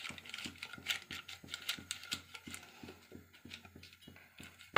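Oiled butter paper crinkling and rustling as a hand presses it into a metal cake tin, a run of small irregular crackles and ticks, with a sharper click near the end.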